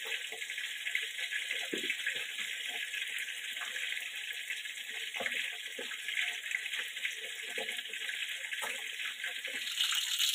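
Fish frying in hot oil in a wok: a steady sizzling hiss with scattered small pops, growing louder near the end.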